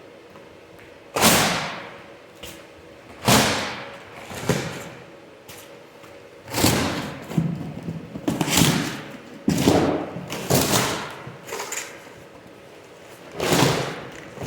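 Outer cardboard shipping boxes being torn up and broken apart by hand: a string of about nine loud thuds and ripping cardboard noises at irregular intervals.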